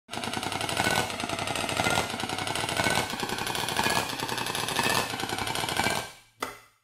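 Channel intro sting: a dense, rapid rattling electronic texture with a pitched layer and a heavier beat about once a second. It fades out near the end, then gives one short final hit.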